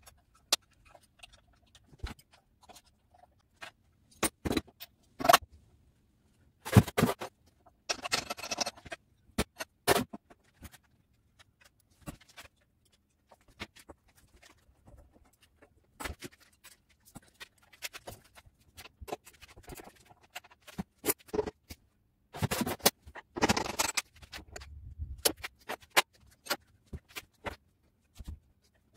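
Workshop clatter from dismantling a motorcycle: scattered clicks and knocks of tools and parts being handled, with two longer stretches of rattling and scraping, one about seven to nine seconds in and one about twenty-two to twenty-four seconds in.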